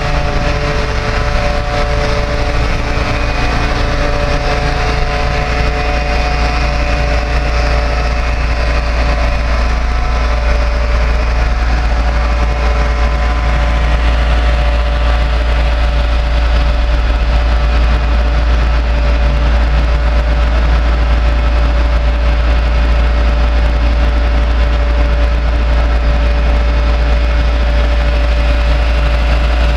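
Truck-mounted MPG 285 TM knuckle boom crane running steadily, its truck engine humming with a steady whine over a heavy low rumble.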